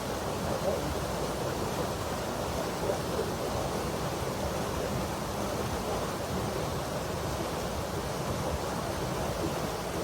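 Forest stream or small waterfall rushing steadily, a dense even wash of water noise with most of its weight in the low and middle range.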